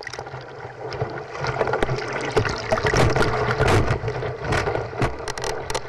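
Wave water rushing and splashing around a surfboard riding a wave, with wind on the microphone; it swells up over the first second or so.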